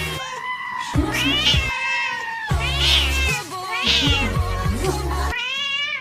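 Domestic cat meowing several times over background music with a steady low beat.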